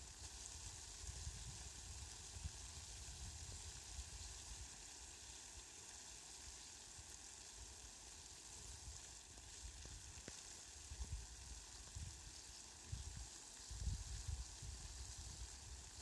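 Faint, steady hiss of water drops falling on petunias and lawn grass, with a few low rumbles about two-thirds of the way through and again near the end.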